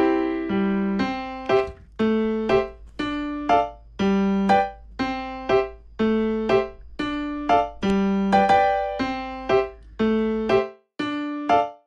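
Background music: a simple keyboard melody with notes struck about twice a second.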